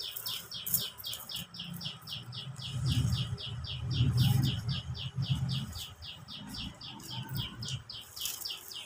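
Cotton fabric rustling and being handled as a suit is unfolded and shaken out, heaviest from about three to six seconds in. Under it runs a steady, rapid series of short high chirps, about six a second.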